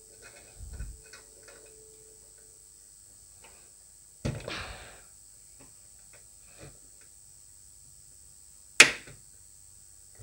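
Small clicks and taps of hands and tools working on an opened rotary volume-control potentiometer as its metal stop tab is bent straight: scattered light ticks, a rattling knock about four seconds in, and a sharp click, the loudest, near the end.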